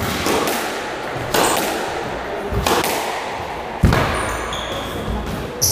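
Squash rally: the ball cracking off rackets and the court walls about five times, a little over a second apart, each echoing in the court. Sneakers squeak briefly on the wooden floor about four seconds in, just after the loudest crack.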